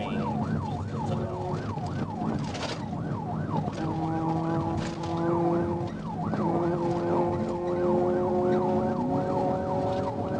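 Police siren on a rapid yelp, sweeping up and down about three times a second, from a patrol car in pursuit at over 80 mph. Underneath it runs a steady drone of engine and road noise.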